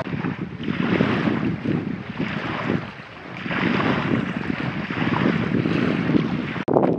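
Wind gusting on the microphone over choppy water, with small waves lapping. The noise swells and eases in uneven gusts, without a clear engine tone.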